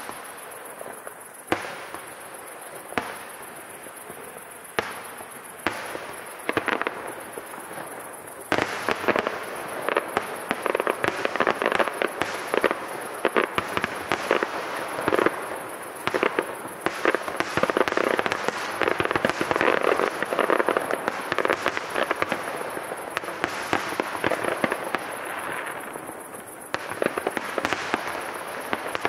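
Fireworks display: single shell bursts about a second apart, then from about eight seconds in a dense barrage of rapid bangs that thins out again near the end.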